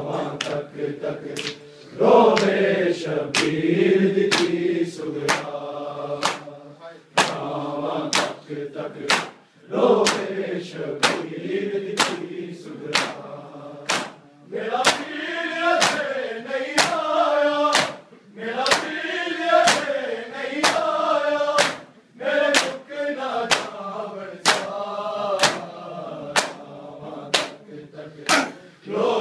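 A group of men chanting a noha lament in unison, with sharp, evenly spaced slaps of matam: open hands striking bare chests together on the beat.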